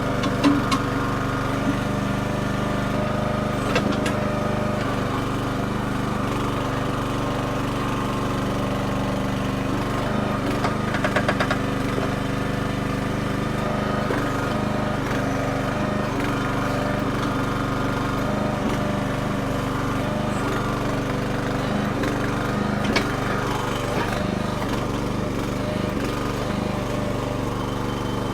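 Red Rock mini towable backhoe's small gas engine running steadily while its hydraulics work a stump, with a few sharp knocks and a quick rattle of clicks about eleven seconds in.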